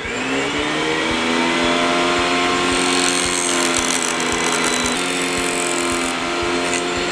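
Table saw switched on: the motor and blade spin up with a rising whine over the first half second or so, then run steadily at full speed.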